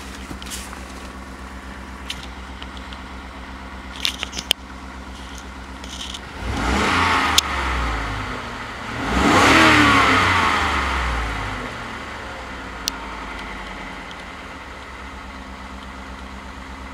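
Ford 5.0 Coyote V8 idling, then revved twice to around 2,000 rpm, each rev rising and falling back to a steady idle. Heard from inside the truck's cab.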